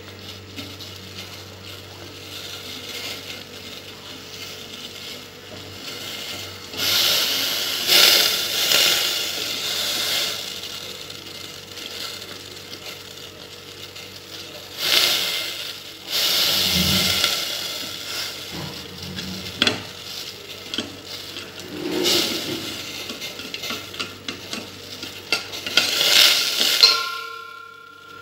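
Wet pieces of slate pencil clattering and scraping against a steel bowl as they are stirred with a utensil. It comes in several bursts of a few seconds with quieter stretches between.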